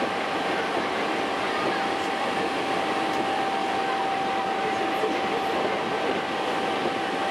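Hankyu Kyo-train electric train running steadily, heard from inside the car: an even running rumble with a thin, steady high tone over it.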